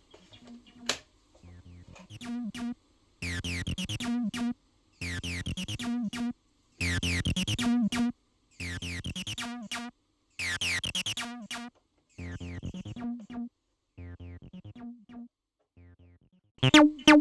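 Synthesizer notes and chords with a falling filter sweep on each, played in short separate phrases of about a second each with dead silence between them.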